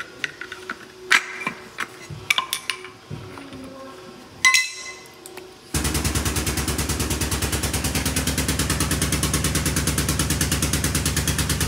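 Hand tools clicking and clinking against the metal housing of a DD3 air brake chamber as it is taken apart, with one ringing metal clink. About six seconds in, a loud, rapid, steady mechanical pounding starts suddenly and keeps going.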